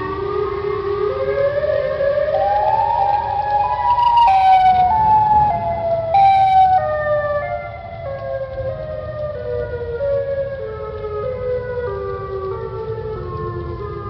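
Chicago outdoor warning siren sounding a chord of several tones that climbs in pitch over the first four seconds, is loudest just after, then slowly falls back down, with a low rumble underneath.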